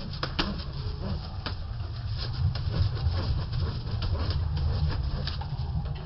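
A flock of pigeons moving about an aviary floor: scattered sharp clicks and flutters over a steady low rumble.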